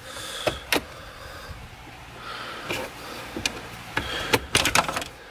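Scattered plastic clicks and rustling as the R32 Skyline's centre-console trim panel is handled and the wiring plugs behind it worked at, with a quick run of clicks about four seconds in.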